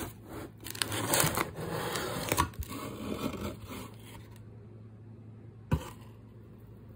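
Cardboard box being opened and its contents handled: scraping and rustling of cardboard and paper with a few sharp clicks for the first three seconds or so, then quieter, with one sharp knock a little before the end.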